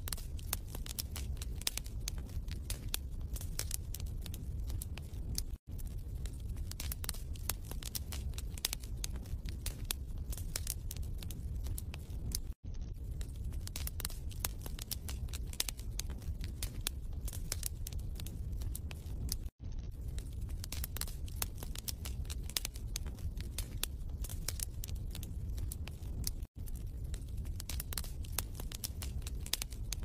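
Wood fire crackling in a fireplace: a dense, irregular run of pops and snaps over a low steady rumble, cutting out for an instant about every seven seconds.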